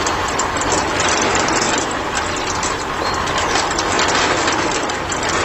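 Model concrete mixer running: its small motor and gear drive turn the drum with a steady, dense, gritty rattle.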